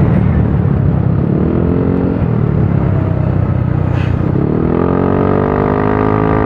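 Motorcycle engine running under way, with wind rumbling on the microphone. The engine note sags, then climbs about four and a half seconds in as the bike speeds up, and holds steady at the higher pitch.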